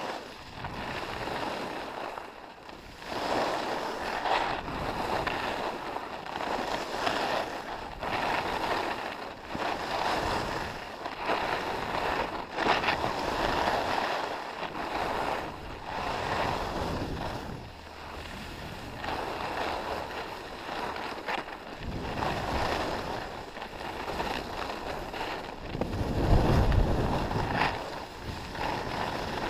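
Skis scraping and carving across packed snow in repeated turns, the hiss swelling and fading with each turn, with wind rumbling on the helmet camera's microphone, loudest near the end.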